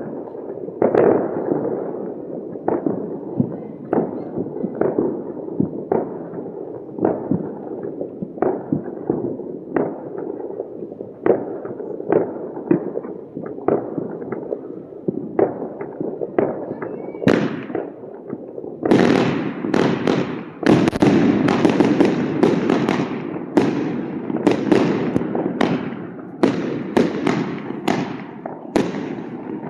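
Fireworks and firecrackers going off all around: a steady run of bangs and pops, one or two a second, over a constant rumble of more distant ones. A bit past halfway a closer, sharper barrage of rapid cracks starts and keeps going.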